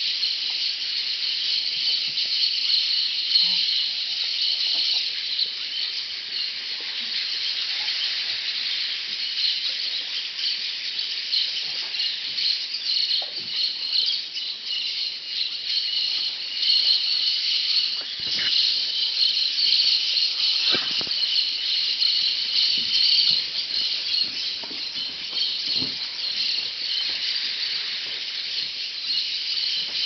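A large flock of parrots chattering and screeching in a dense, continuous chorus, with a few sharper, louder calls in the second half.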